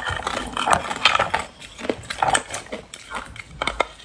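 A hard, clear block of ice making many sharp cracks and clicks, with a few short squeaks, as it is pulled from a silicone mold and bitten.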